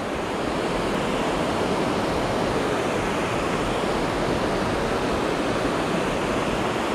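Steady rushing of river water below a dam, an even roar with no breaks.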